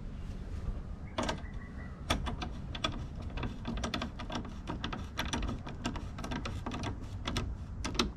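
Socket ratchet tightening a Nylock nut onto a roof-rack mounting bolt, its pawl clicking in a rapid, uneven series of sharp clicks as the handle swings back and forth.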